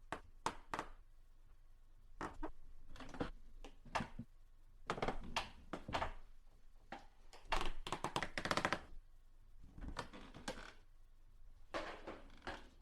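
Wood creaking: a series of irregular short creaks, some drawn out with a rough grain, clustered most densely about halfway through.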